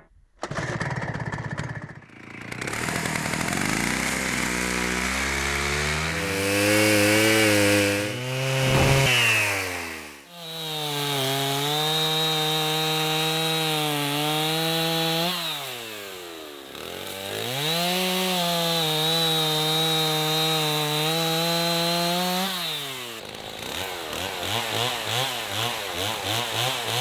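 Stihl MS210 two-stroke chainsaw cutting up a felled trunk for firewood. It revs up over several seconds and drops sharply about ten seconds in. It then holds high speed twice with a brief dip between, and falls to a lower, uneven speed near the end.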